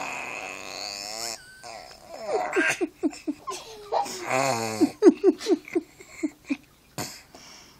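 Six-month-old baby vocalizing: a long strained, grunting squeal at the start, then more voiced sounds ending in a quick run of short laugh-like pulses, about five a second.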